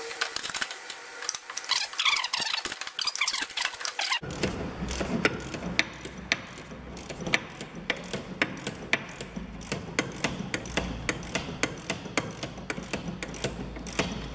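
Ratchet clicking in repeated short runs, with metal tool knocks, as the 21 mm nut on top of the strut's shock absorber is undone with a socket while a 7 mm Allen bit holds the shaft. The clicks come thicker from about four seconds in.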